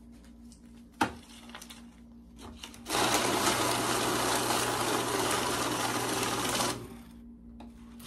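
Electric bill-counting machine running for about four seconds as a stack of crumpled one-dollar bills riffles rapidly through, its motor humming under the fluttering of the notes; it starts and stops abruptly. A single sharp click comes about a second in.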